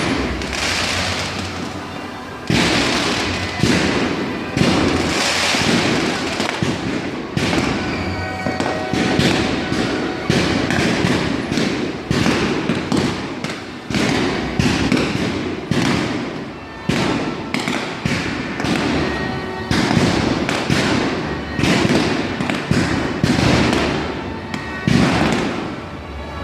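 Firework display: aerial shells bursting one after another, about one to two bangs a second, each trailing off into crackle.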